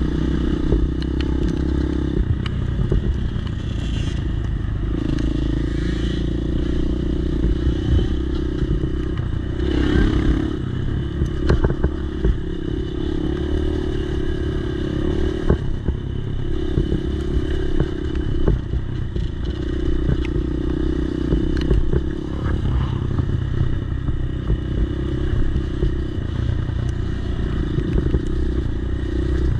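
Dirt bike engine running hard on a trail ride, its pitch rising and falling every few seconds with the throttle, heard close up from the bike. Frequent short rattles and clicks run through it as the bike goes over the bumpy dirt.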